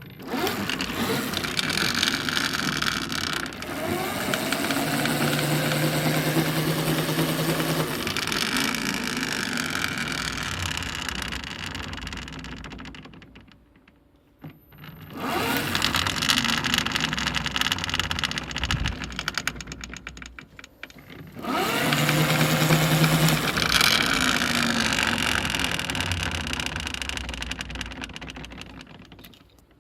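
Electric bicycle's drive and wheel spun up twice, each run rising in pitch to a steady hum and then slowly winding down, with an unusual noise that the owner suspects may come from the wheel bearings.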